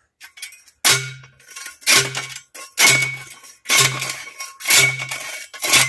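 Manual post driver slamming down on a steel stake, driving it into the ground: six loud metallic clangs about a second apart, each ringing briefly.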